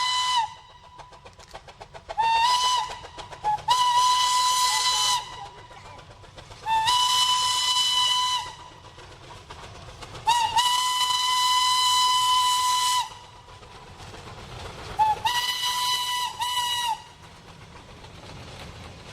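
Steam locomotive whistle sounding a series of single-pitch blasts, some short and some long, the longest about two and a half seconds, each sliding up to pitch as it starts. Between the blasts a quieter, rapid rhythmic beat runs underneath.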